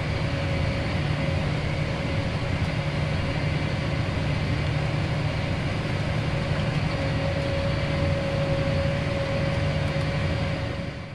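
John Deere tractor running steadily under load, heard from inside the cab: a low engine drone with a steady thin whine above it, fading out at the very end.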